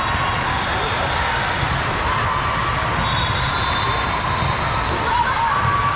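Steady, echoing din of a volleyball tournament hall: balls being struck and bouncing, over a background of crowd noise.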